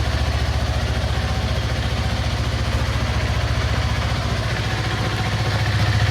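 2016 Yamaha R3's parallel-twin engine idling steadily on a cold start, warming up after sitting unused for a couple of weeks; it grows a little louder near the end.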